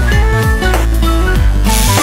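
Electronic background music with a heavy bass line and drum hits; near the end a steady bright hiss joins it.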